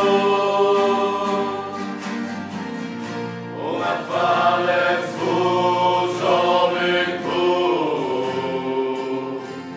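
Choir singing a Christian hymn in long held notes, growing quieter near the end.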